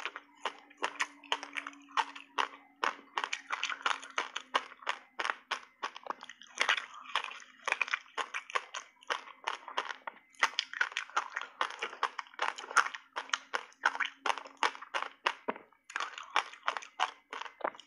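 Ice eating: bites and chewing of a slab of frozen reshaped passionfruit ice coated in matcha powder, a dense run of sharp crunches and cracks several a second, with short pauses between bites.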